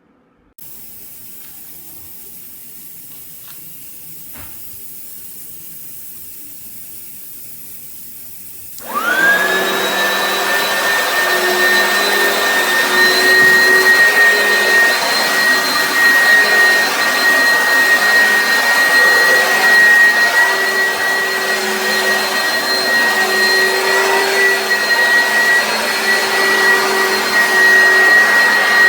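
Oreck Commercial XL upright vacuum cleaner switched on about nine seconds in: its motor whine rises quickly to a steady high pitch over a loud rush of air, then runs steadily. Before it starts there is only a fainter steady hiss.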